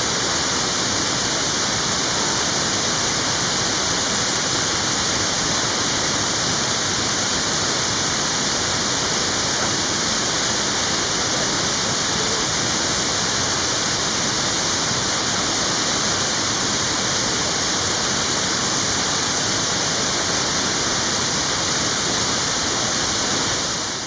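Steady rush of a waterfall, falling water pouring without a break.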